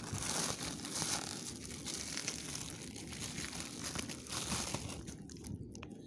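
Plastic packaging crinkling and rustling as a courier mailer bag is handled and opened by hand, a dense crackle that thins out about five seconds in.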